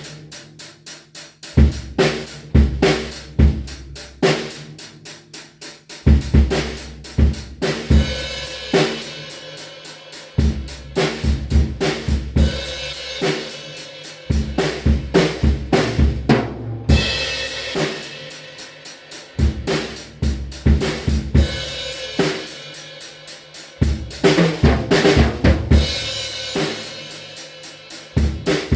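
A drum kit played freely: quick runs of snare and drum hits over kick drum, with stretches of ringing cymbal wash laid over the strikes.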